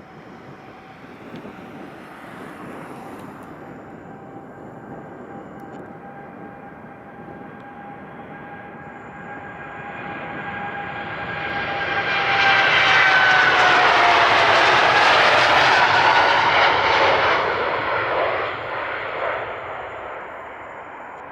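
Jet airliner taking off and passing by. Its engine whine builds from about ten seconds in, stays loud for several seconds, and its tones drop in pitch as the aircraft goes past before fading.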